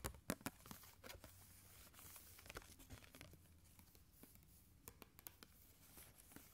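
Faint, close-miked handling of card packaging: a sharp tap at the start and scattered light clicks, then a soft papery rustle lasting a couple of seconds.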